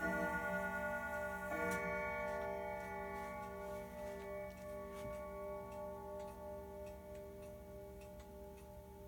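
Sligh grandfather clock striking: its chime rings out once more about a second and a half in, then slowly fades. Under it the movement ticks steadily, about two ticks a second.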